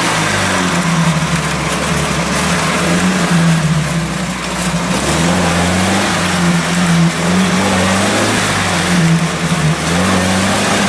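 UAZ-469 engine revving up and down in repeated surges as the 4x4 crawls through deep mud in a flooded rut, its wheels churning and digging in.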